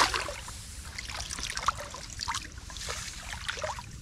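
Shallow muddy paddy water splashing and trickling as a person wades and moves a woven basket through it: a louder splash at the start, then small irregular splashes and drips.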